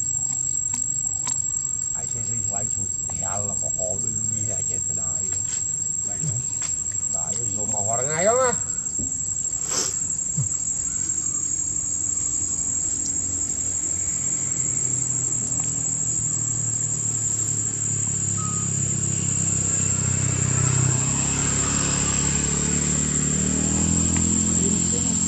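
Steady high-pitched insect drone, with a few short squeaky calls about three and eight seconds in and a low rumble in the last several seconds.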